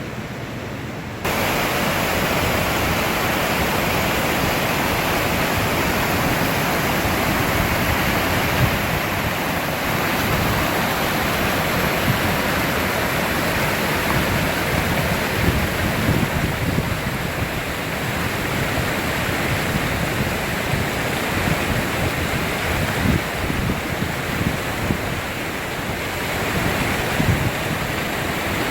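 Waterfall: a steady rush of falling water that gets suddenly louder about a second in.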